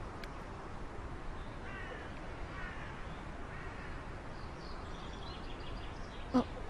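Quiet, steady background ambience with a few faint bird calls about two to four seconds in, and a brief voice-like sound near the end.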